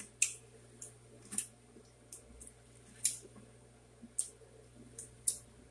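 Close-up mukbang eating sounds: crunchy salad of lettuce, apple and onion being chewed. The chewing comes as a series of short, crisp crunches and clicks, about seven, unevenly spaced.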